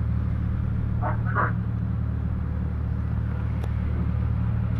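Ship's engine running with a steady low hum, heard on deck.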